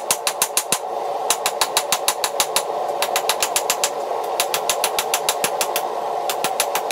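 Hand hammer striking hot mild steel on an anvil: quick runs of sharp, ringing blows, with short pauses about a second in and again before the end. A forge burner runs steadily underneath.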